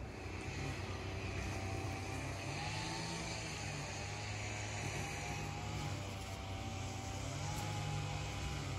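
A motor engine running steadily, a low hum whose pitch wavers slightly up and down, over a background hiss.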